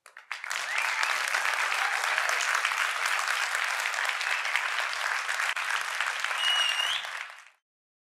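Audience applauding at the end of a talk, with a short high whistle near the end; the applause fades out shortly before the close.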